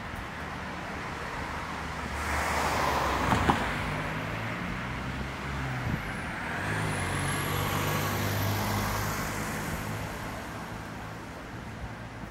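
Cars passing on the street beside the pavement, one after another. The first swells up about two seconds in and is loudest around three to four seconds; a second passes with a low engine hum around seven to nine seconds, then fades.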